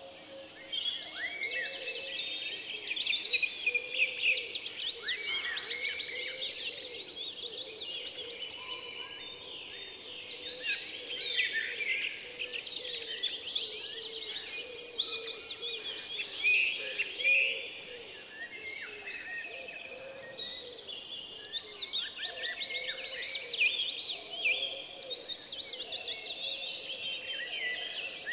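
Many small birds chirping and singing at once, a dense, continuous chorus of short twittering calls, busiest and loudest around the middle.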